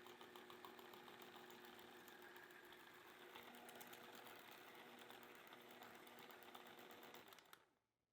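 Electric hand mixer running steadily, beating cream cheese cream, with a fine rapid ticking from the beaters in the bowl; it fades out near the end.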